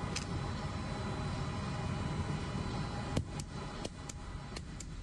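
Steady low rumble of running machinery in a ship's engine room, with a handful of sharp metallic clicks in the second half as a long torque spanner is worked on the injector's lock nut.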